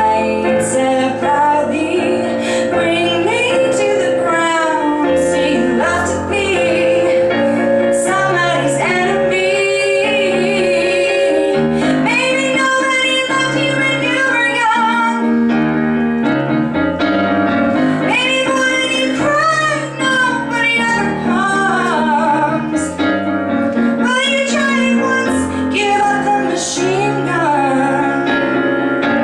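A woman singing a pop song live, her voice gliding between held notes over a steady piano accompaniment.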